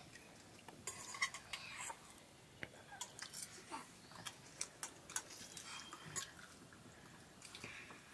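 Metal spoons clinking and scraping against metal bowls as people eat, a scatter of light, irregular clicks.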